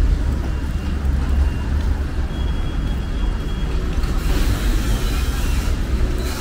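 Road traffic on a wet city boulevard: a steady low rumble of vehicles, with tyre hiss on the wet road swelling from about four seconds in as a vehicle passes.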